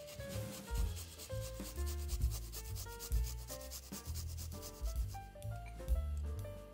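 A garlic clove rubbed back and forth on a fine metal hand grater, making quick rhythmic rasping strokes that thin out about five seconds in. Background music plays underneath.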